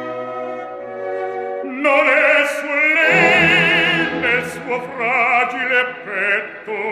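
Orchestra holding a sustained chord, then about two seconds in an operatic baritone comes in loudly, singing in Italian with a wide vibrato over the orchestra.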